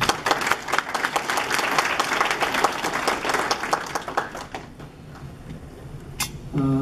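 Audience applause: many people clapping densely, which dies away after about four and a half seconds.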